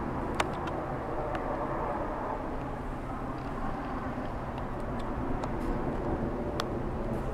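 Steady low rumble of outdoor night background noise, with a few short, faint clicks on top, the loudest about half a second in.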